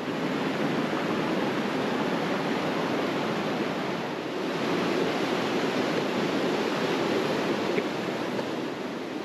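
Ellis River rushing over rock cascades near Glen Ellis Falls: a steady, even sound of white water.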